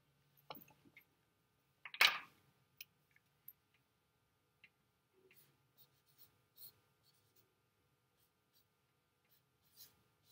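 Felt-tip marker writing on a paper chart pad: faint, scattered short strokes and taps, with one sharper, louder noise about two seconds in.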